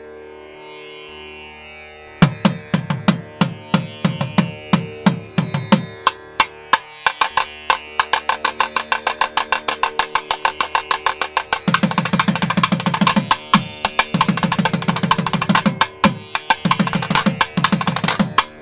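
Background music: a sustained drone, joined about two seconds in by fast Indian-style hand-drum strokes whose low strokes slide in pitch, playing in quick rhythmic runs.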